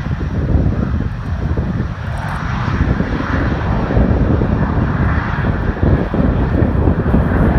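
Jet airliner's engines roaring as it passes, the broad roar swelling about two seconds in.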